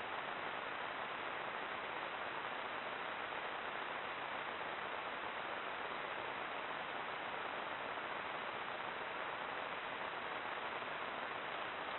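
Steady, even hiss from a Browning trail camera's own microphone, with no distinct sounds standing out.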